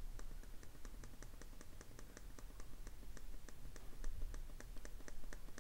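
Faint, regular clicking, about five sharp clicks a second, at an even pace.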